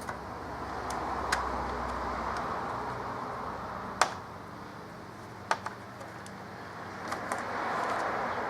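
Plastic laptop bottom case being handled and fitted back on: a handful of sharp clicks and taps a second or so apart, over a low, uneven rustling noise.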